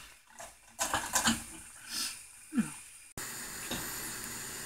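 Wooden spatula stirring chopped onion and green peppers in a hissing frying pan, with short scrapes and knocks against the pan. About three seconds in it cuts to a steady hiss of pans cooking on the stove.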